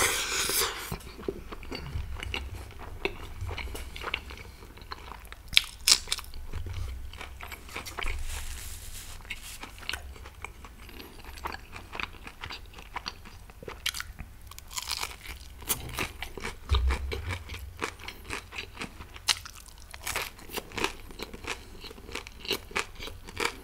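Close-miked eating: a person chewing and biting food, with many short, sharp mouth clicks and smacks coming irregularly throughout.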